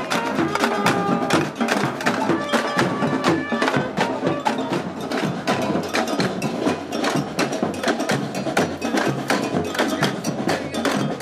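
A marching street percussion band playing a fast, steady rhythm: many drums and tambourines struck together.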